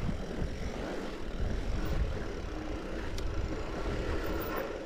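Mountain bike rolling along a dirt trail: low rumble of tyres on the ground and wind on the microphone, with a single sharp click about three seconds in.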